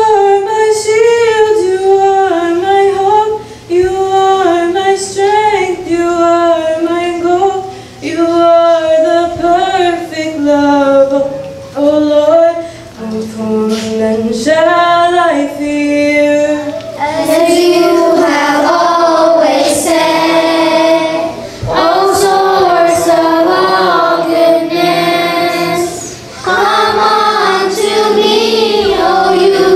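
A children's choir singing a church hymn, led by a woman singing into a microphone. About halfway through, the singing grows fuller as more voices come in.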